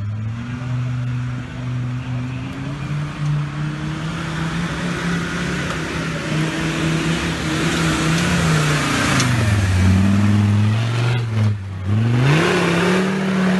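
Off-road vehicle's engine running under load: the engine note climbs slowly, drops about nine seconds in, cuts out briefly, then revs up again near the end.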